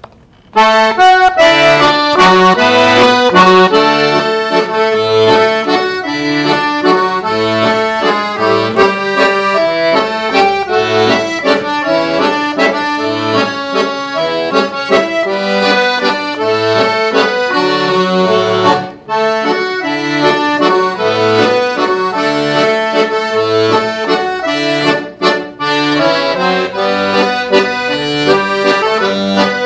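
Todeschini piano accordion playing a solo waltz: a melody on the treble keys over regularly recurring low bass notes. It starts about half a second in, with a couple of brief breaks in the playing in the second half.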